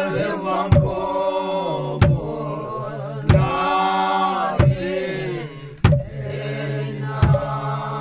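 A group of voices chanting a traditional dance song together, long held notes over a low steady drone, with a drum struck about once every second and a quarter. The chant breaks off for a moment just past the middle and starts again.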